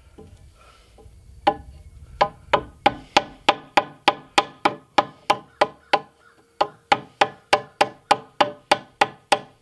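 Steel hammer striking a wood-handled chisel, paring a taper onto the end of a log post. A few separate knocks come first, then from about two seconds in a steady run of sharp knocks, about three a second.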